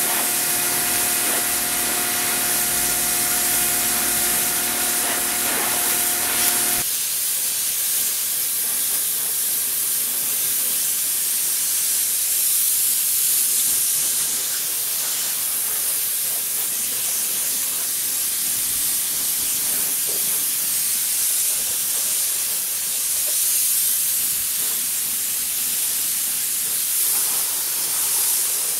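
Cordless pressure washer spraying water in a steady hiss. For about the first seven seconds a steady whine rides over the spray, then cuts off suddenly, leaving the hiss of a low-pressure 40-degree fan spray (about 507 psi) playing over an engine bay.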